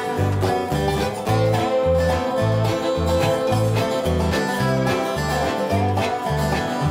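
Bluegrass band playing an instrumental break with no singing: banjo, fiddle and guitars over a bass line that alternates between two notes in a steady boom-chick rhythm.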